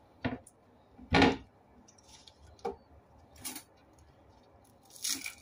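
Wooden chopping board and spring onions being handled on a kitchen counter: a few sharp knocks, the loudest about a second in, and a brief rustle near the end.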